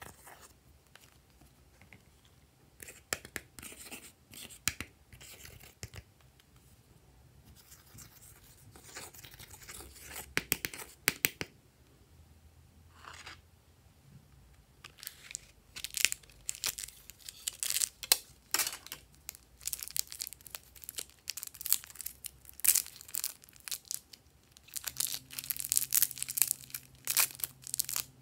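Glossy slime being stretched, folded and pressed by hand, giving irregular crackling, tearing and clicking sounds in clusters that grow busier and louder in the second half.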